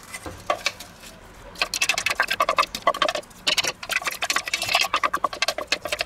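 Chopped onion scraped with a wooden spatula out of a plastic chopper bowl into a pan of hot clarified butter, giving rapid crackling clicks that begin about a second and a half in and run on densely.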